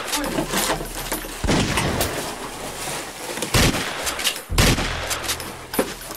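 Pistol gunshot sound effects in video-game style: a few single shots, a second or two apart, over a continuous noisy background.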